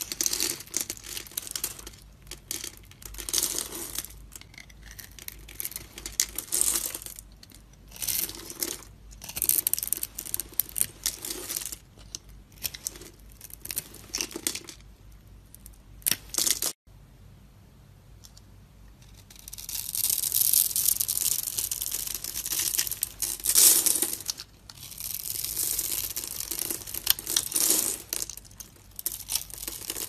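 Snap-off utility knife blade slicing through a grid-scored bar of dry soap, the small cubes crunching and crackling off in repeated short strokes. Past the middle the sound cuts off abruptly, and after a few quieter seconds longer, denser crunching strokes follow.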